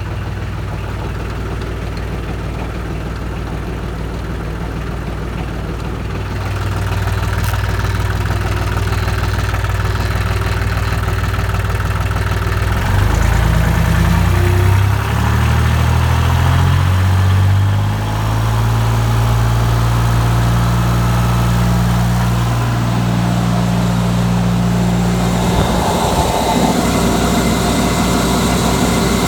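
Turbocharged Ford 1720 compact tractor's diesel engine running, brought up in speed: it grows louder about six seconds in, wavers and shifts in pitch between about 13 and 18 seconds, then holds a steady speed.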